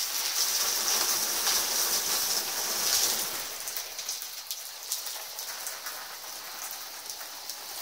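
Water spraying from a garden hose onto the vinyl floor of an empty inflatable paddling pool: a steady spattering hiss, loudest in the first three seconds and softer after about four seconds.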